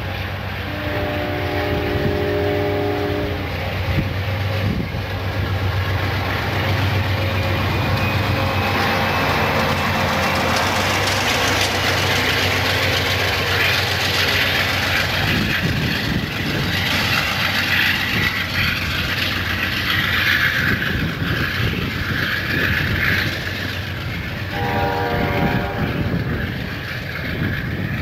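Amtrak passenger train running past a station platform: its diesel locomotive hums and its wheels rumble and click over the rails, loudest as the locomotive goes by. A multi-tone train horn sounds briefly in the first few seconds and again near the end.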